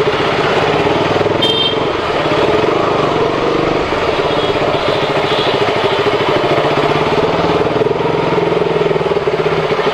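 KTM Duke 200's single-cylinder engine running at low revs while the motorcycle creeps along at walking pace, with a steady, only slightly wavering pitch.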